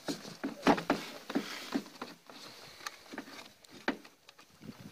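Irregular plastic clicks and knocks from an Opel Astra G's air filter housing lid being handled and worked loose by hand, about eight in all, the loudest a little under a second in.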